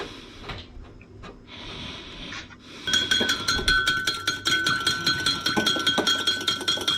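Faint handling knocks, then about three seconds in a utensil starts tapping rapidly against a ringing dish, about seven strikes a second.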